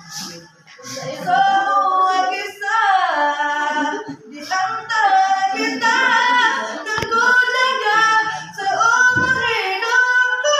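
A teenage girl singing solo, holding long notes that bend and slide in pitch, with short breaks between phrases.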